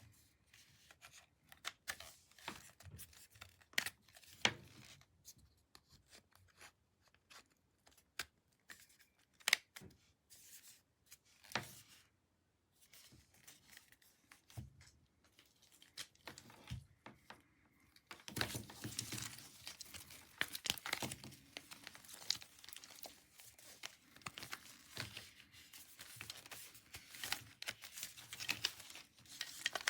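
Handling noises: scattered clicks and rustles, turning into denser, continuous crinkling and tearing-like rustling about two-thirds of the way in.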